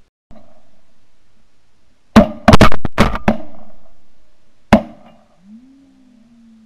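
A rapid volley of about five shotgun shots a little over two seconds in, then a single further shot about a second and a half later, each with a ringing echo. A faint low gliding tone follows near the end.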